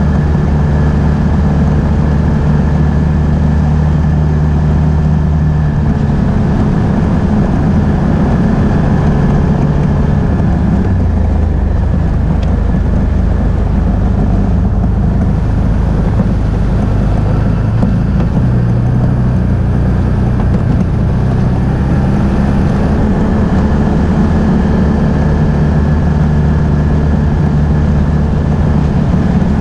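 Can-Am Outlander ATV engine running steadily while riding. Its note drops about a third of the way through and climbs back again about two-thirds of the way through.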